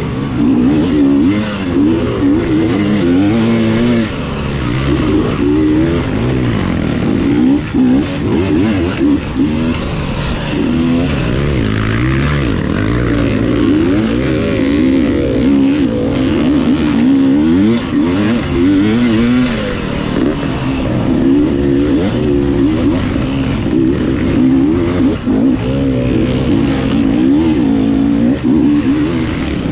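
Dirt bike engine ridden hard off-road, its pitch rising and falling constantly as the throttle opens and closes.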